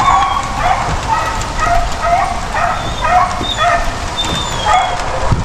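A hunting dog whining and yipping close by, in short repeated calls about two a second, some dropping in pitch.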